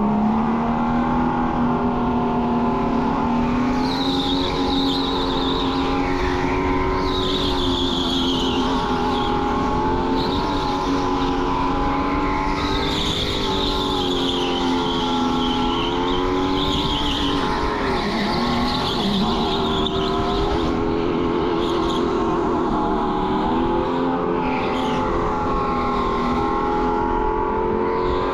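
Go-kart motor running under racing load, its whine rising and falling in pitch with speed, with the kart's tyres squealing through the corners several times.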